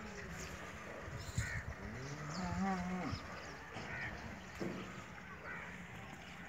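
A cow lowing once: a single moo about two seconds in, lasting just over a second, its pitch rising slightly and wavering before it stops.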